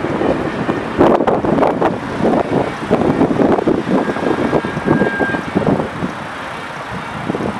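Road vehicles driving past at close range, steady engine and tyre noise with no siren sounding; a short, faint high steady tone shows up about four seconds in.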